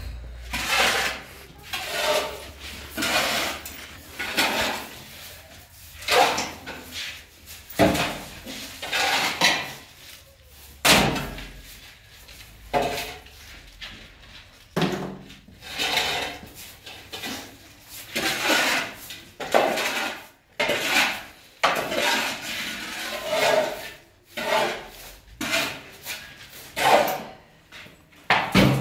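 Repeated knocks and clatters at an uneven pace, roughly one every second or two, like wood and household things being struck or handled.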